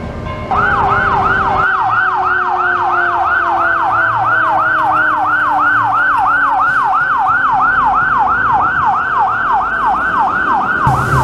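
Electronic siren in a rapid yelp, sweeping up and down about three times a second, starting about half a second in.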